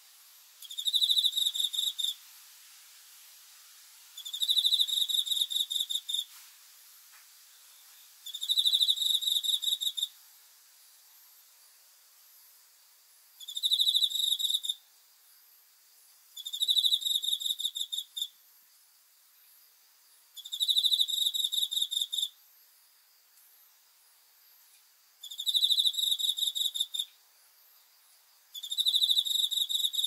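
A cricket singing: high-pitched trills of rapid pulses, each about a second to a second and a half long, repeated every three to five seconds, eight in all.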